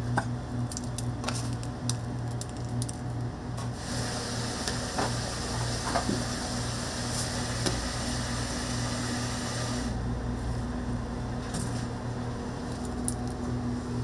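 Kitchen work sounds over a steady machine hum: scattered small clicks and knocks, with a steady hiss that starts about four seconds in and cuts off about six seconds later.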